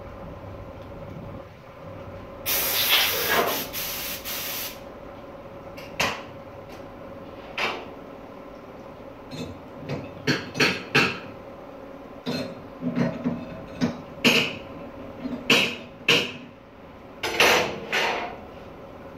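Compressed air hissing from an air hose for about two seconds, then a series of short knocks and clatters as cut wooden panels are handled on a worktable.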